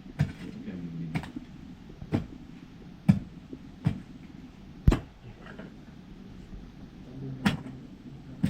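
Axe chopping into a tree root: six sharp strikes about a second apart, a pause of a couple of seconds, then one more strike near the end.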